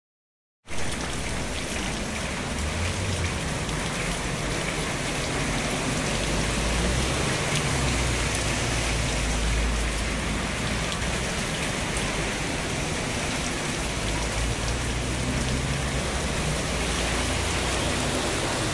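Torrential monsoon rain pouring steadily, a dense even hiss that starts abruptly about a second in, with a low rumble underneath that swells and fades.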